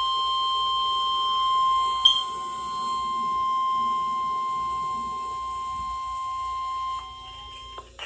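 A weather radio's speaker sounds the NOAA Weather Radio 1050 Hz warning alarm tone for a required weekly test: one steady high tone that stops shortly before the end. There is a brief click about two seconds in.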